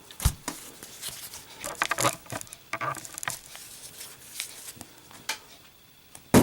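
A brass Zippo lighter is handled for a lit drop test: a scatter of small metallic clicks and scrapes, then a sharp clatter with a brief ring at the very end as the lit lighter hits a hard surface.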